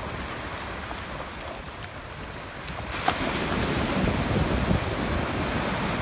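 Small ocean waves washing up the sand and swirling around shoreline rocks, the surf growing louder about halfway through.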